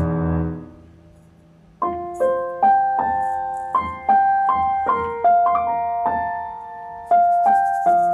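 Piano: the sustained ending of a loud passage dies away in the first second, then after a short gap a slow, sparse melody of single struck notes and two-note chords begins just under two seconds in, each note ringing and fading.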